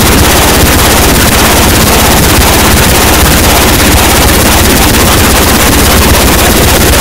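Noisecore recording: a loud, unbroken wall of harsh distorted noise filling the whole range, with a fast stuttering pulse in the low end and no discernible melody or vocals.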